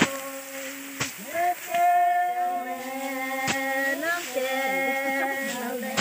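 Several voices singing long, held notes together in overlapping parts, with a few sharp knocks cutting through, one at the very start, one about a second in and one midway.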